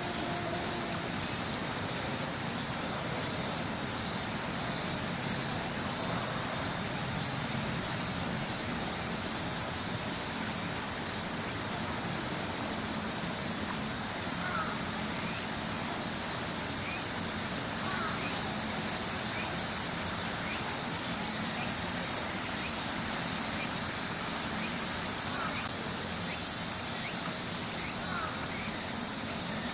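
Insect chorus: a steady, high-pitched shrill drone that grows a little louder about halfway, with a few faint short chirps over it.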